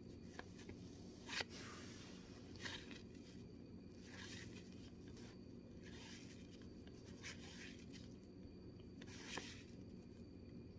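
Soft swishes of baseball cards sliding off a hand-held stack as they are flipped through one at a time, a swish every second or two, over a low steady hum.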